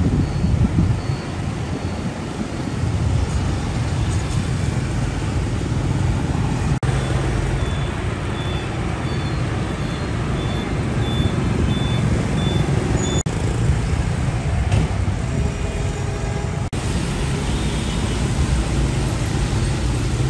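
Street traffic with small box trucks and vans driving past: steady engine rumble and tyre noise. A run of short, evenly spaced high beeps sounds through the middle part, and the sound changes abruptly a few times between clips.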